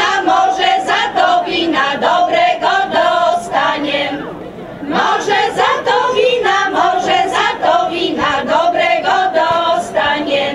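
A women's folk choir singing a Polish folk song together, with a short break between sung lines about four seconds in.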